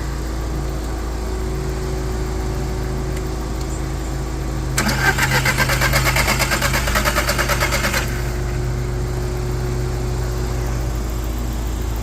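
Audi TT 1.8T turbo four-cylinder cranking on its starter for about three seconds, about five seconds in, with even rapid pulses, as the freshly wired coil pack conversion is tested. A steady low hum runs underneath throughout.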